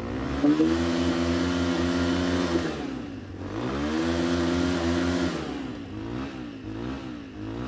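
Two warmed-up Thunder MIG off-road motorcycles, the MiG-20 and MiG-25, revved together. The engines are revved twice, each time rising, held high for about two seconds, then dropping back, and settle into a lumpy idle for the last couple of seconds.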